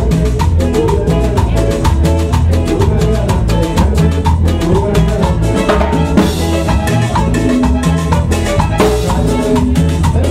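Loud Latin dance music with a steady, quick percussion beat and pitched melody over it.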